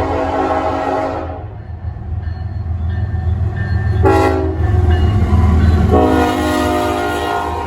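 Diesel freight locomotive's air horn sounding: a long blast that ends about a second and a half in, a short blast at about four seconds, then another long blast from about six seconds, over the low steady rumble of the passing train.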